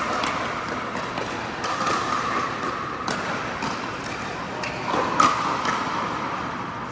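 Pickleball paddles striking a hard plastic pickleball in a rally: about four sharp pocks, one every second or two, the loudest near the end.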